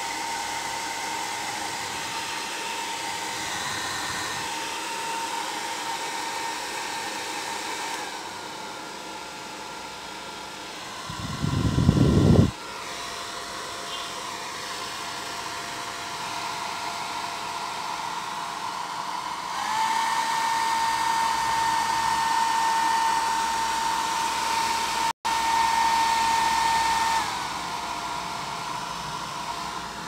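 Havells HD3101 handheld hair dryer running with a steady whirring blow. Its pitch steps down, later steps back up, and near the end drops again. There is one brief loud low rush about a third of the way in, and a split-second dropout.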